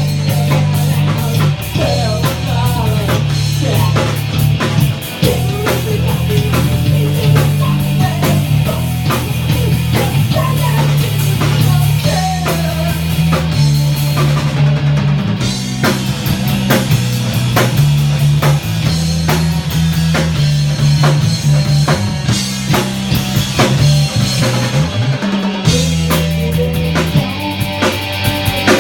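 Rock music with drum kit, bass and guitar, a steady driving beat.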